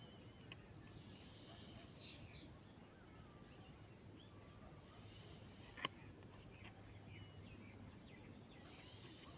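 Faint outdoor ambience: a steady high insect drone with scattered bird chirps, and one sharp click about six seconds in.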